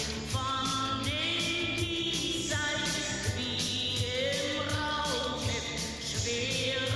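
Song with a steady beat and long held sung notes.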